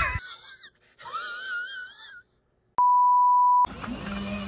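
Edited-in sound effects: a warbling whistle-like tone that wavers up and down for about two seconds. After a short silence, a steady single-pitch bleep tone, the kind used to censor a word, lasts just under a second.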